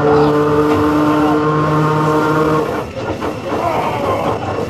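Sydney wooden-bodied Bradfield electric motor car on the move: a steady hum with overtones stops suddenly about two-thirds of the way in, leaving the rattle and clatter of the car running on the rails.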